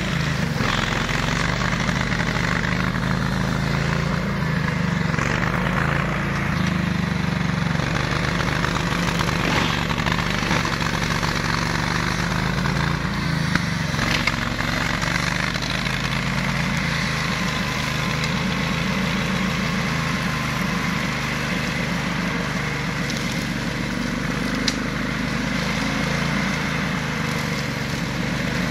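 18 hp engine of a ride-on flail mower running steadily, with a few sharp ticks about halfway through and again near the end.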